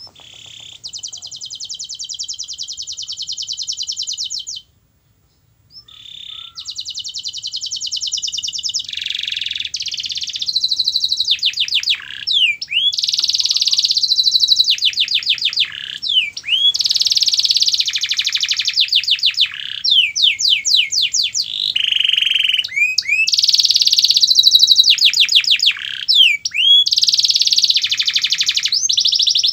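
Domestic canary singing a long song of fast trills and rapidly repeated rising notes, phrase after phrase, with one short pause about five seconds in.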